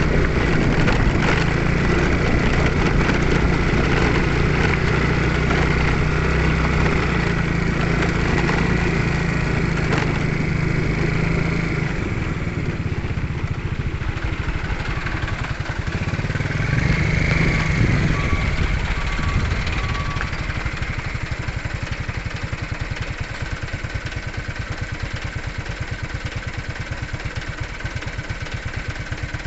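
Motorcycle engine running while riding, with revs rising and falling, then settling into an even, slow putter at low revs over the last part.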